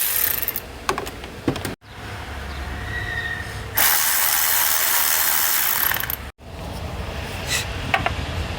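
Milwaukee M12 3/8-inch cordless power ratchet running in bursts, spinning small fasteners; the longest run lasts about two seconds, and the sound cuts off abruptly twice.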